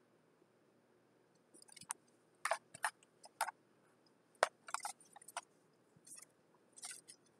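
Paper and packaging being handled: a scatter of short, sharp crinkles and clicks that begins about one and a half seconds in, after a quiet start.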